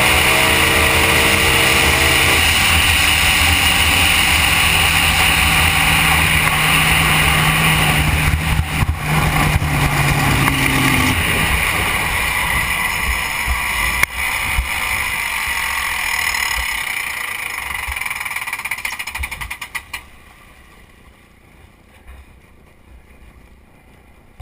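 Supercharged (blown) drag hydroplane engine running loud at low speed, with water and wind rushing past. Its pitch drops a couple of seconds in, and the engine sound dies away about twenty seconds in, leaving only faint water noise.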